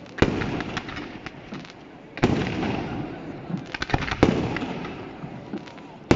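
Aerial firework shells exploding: two loud bangs about two seconds apart, each followed by a long rolling echo. A few sharp crackles come in between, and another bang lands at the very end.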